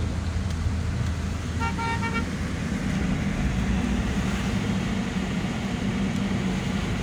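Steady engine and road rumble inside a moving car's cabin, with a brief car horn tooting in a few quick pulses about two seconds in.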